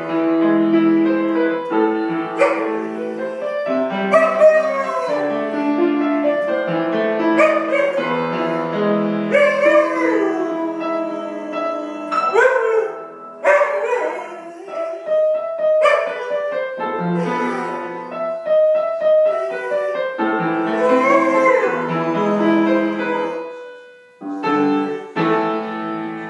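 An Afghan hound howling along with piano music, its howls sliding up and down in pitch over the piano notes, several times.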